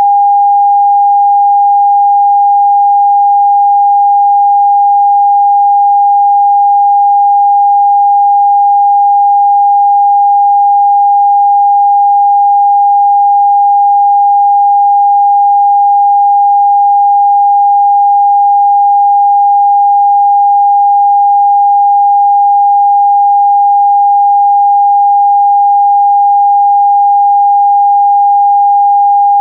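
Television test-card tone broadcast with the NRK PM5544 test card: a single pure tone, held steady without any change in pitch or level.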